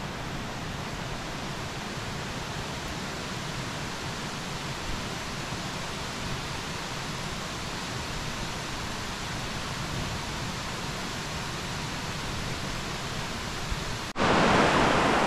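Steady rush of a mountain stream, an even hiss of flowing water. About a second before the end it cuts abruptly to a louder, closer rush of water.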